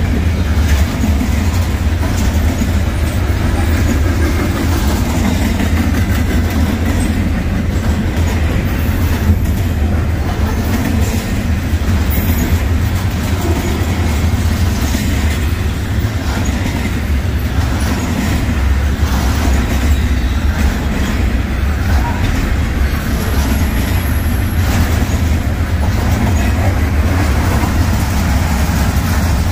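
Norfolk Southern freight train rolling past, a loud, steady rumble of its cars on the rails that keeps up without a break.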